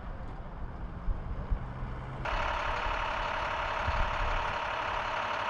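A vehicle passing on the road, low and rumbling. About two seconds in, this cuts suddenly to a louder, steady engine noise of large emergency vehicles idling.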